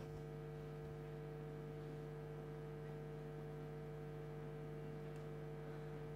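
Steady electrical mains hum with no other sound.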